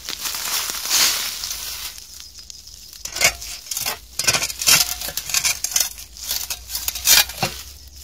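Scrap metal being dug out of dry leaves and soil: rustling and scraping, then from about three seconds in a run of knocks and metallic clinks.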